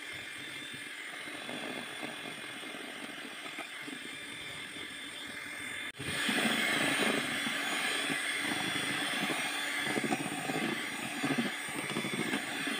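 Electric hand mixer whirring as its two wire beaters whisk cake batter in a steel bowl; after a brief break about halfway through it comes back louder.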